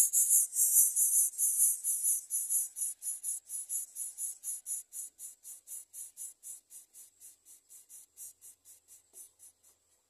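Greater coucal nestling begging with high-pitched hissing pulses, about four to five a second, that grow steadily fainter and stop near the end.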